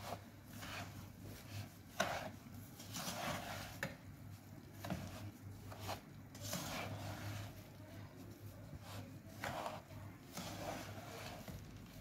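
Spatula scraping and stirring a dry, crumbly mix of semolina, milk powder, sugar and oil in a nonstick pan, in irregular strokes with a sharp knock about two seconds in. The mix is being roasted over a low flame on its way to golden brown.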